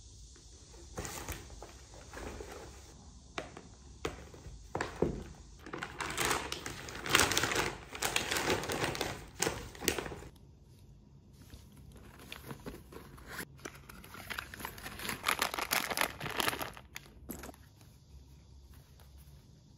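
Rustling and crinkling of a nylon backpack and its packing pouches as they are handled and packed, coming in two long stretches with a brief lull between.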